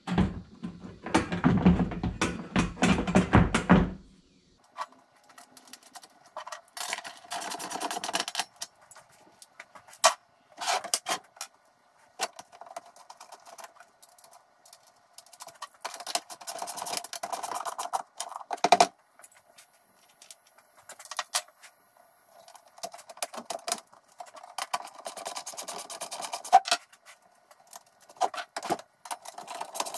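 Thin sheet-metal strip handled and fitted against a plastic radiator fan shroud: a loud metallic rattle in the first few seconds, then scattered clicks, taps and scrapes of metal on plastic.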